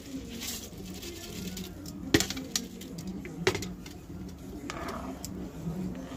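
A metal spoon knocking against the rim of a cooking pot while stirring: two sharp clinks about a second and a half apart, with a few fainter taps.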